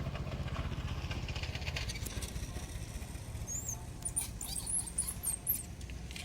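A few short, very high-pitched squeaks from a baby monkey in the second half, each with a quick bend in pitch, over a low rumble and crackly rustling.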